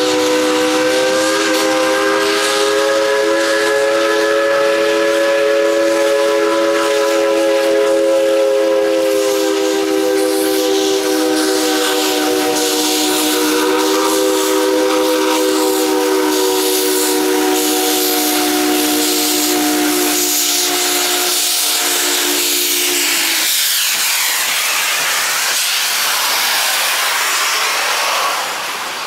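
Steam locomotive whistle blowing one long, loud chord of several tones together. It holds for about twenty-three seconds, its pitch sagging slightly, then cuts off, leaving steam hissing.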